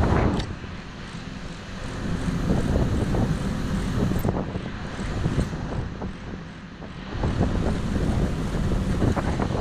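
Wind buffeting the microphone in gusts that rise and fall, over the wash of the sea along a ship's side.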